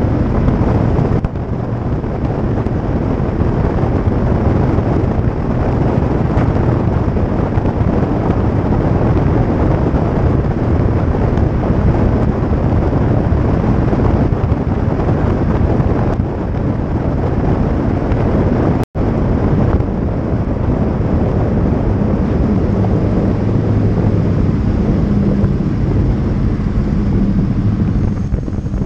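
Steady tyre roar and wind buffeting on a microphone mounted low beside the rear wheel of a 1986 Chevrolet Monte Carlo SS driving over rough, patched pavement, with the small-block V8's Flowmaster exhaust rumbling underneath. The sound cuts out for an instant about two-thirds of the way through, and in the last few seconds the exhaust's low drone comes through more clearly.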